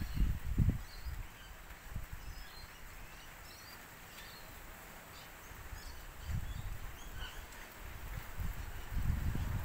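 Small birds chirping on and off, with gusts of wind buffeting the microphone in low rumbles at the start, about six seconds in and near the end.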